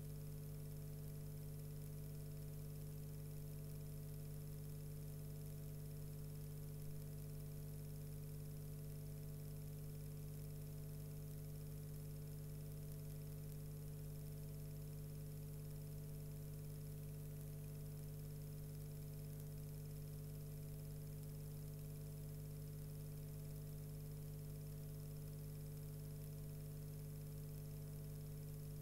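Steady electrical hum with a faint hiss, unchanging throughout; no sound from the fire itself.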